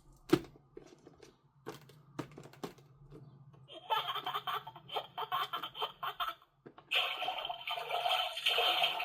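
A few sharp clicks and knocks of handling, then water splashing from about four seconds in, and a steadier rush of running water from about seven seconds in.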